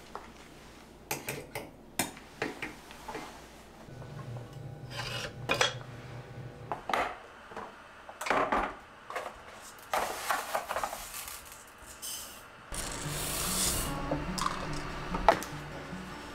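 Kitchen utensils and cookware being handled: a series of short knocks, clinks and scrapes, with dry rice grains rustling under a hand in a plastic container. A steady hiss joins in about two-thirds of the way through.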